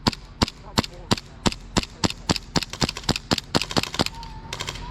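An airsoft gun firing single shots in steady succession, about three a second, quickening, then a quick burst of several shots near the end.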